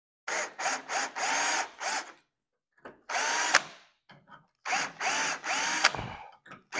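Cordless drill spinning a 100-degree microstop countersink cutter into rivet holes in a metal bracket. It runs in a series of short trigger bursts, each spinning up and winding down, with one longer cut about halfway through.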